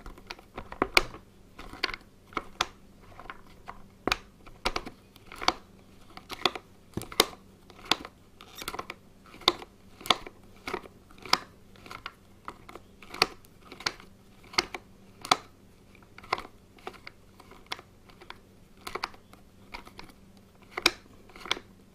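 Sharp plastic clicks, one to two a second and unevenly spaced, from a Ryobi string-trimmer head's winding knob being pushed in and twisted round by hand, ratcheting as it winds the line onto the spool.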